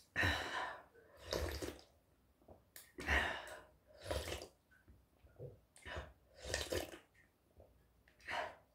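A person slurping broth from a bowl in a series of short, noisy sips about a second apart, with breathy exhales between them.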